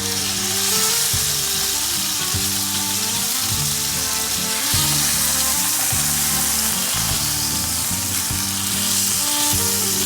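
Chicken breast searing in hot olive oil in a frying pan, with a steady sizzle.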